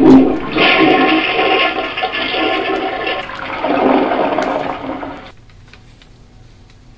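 Toilet flushing: loud rushing water that cuts off abruptly about five seconds in.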